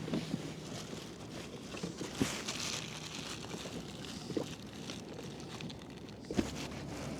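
Four light knocks about two seconds apart and a brief rustle, over a faint steady background: handling of fishing gear on a kayak.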